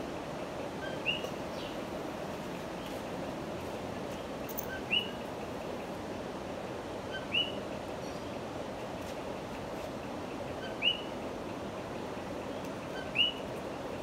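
Common coquí frog calling its two-note "co-QUI" five times, every two to three seconds: a short low note followed by a higher rising chirp, over steady background noise.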